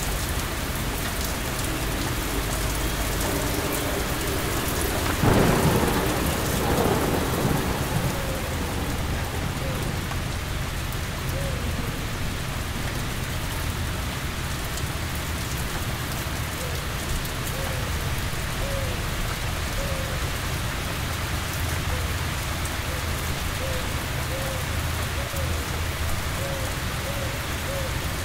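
Steady rain falling, with a thunderclap about five seconds in that rumbles on for two or three seconds before fading back under the rain.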